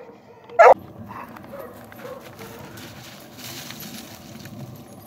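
Excited hound dog gives one loud, short bark about half a second in, then fainter whines and yips. A soft rustle of brush follows in the second half.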